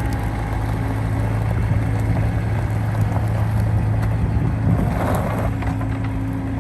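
A motor running steadily at a constant pitch, with a brief rush of noise about five seconds in.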